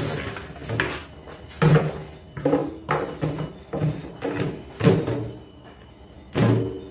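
Irregular clunks and knocks, about half a dozen spread unevenly: handfuls of cut vegetable stems being moved by hand from a plastic colander into a stainless steel bowl in a sink.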